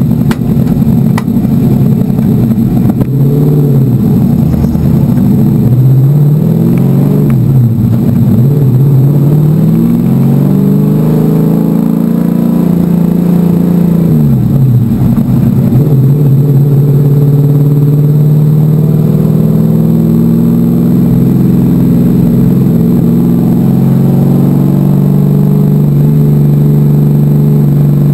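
NASCAR stock car's V8 engine heard from inside the car, pulling away with the revs climbing and dropping several times, then running steady at high revs from a little past halfway.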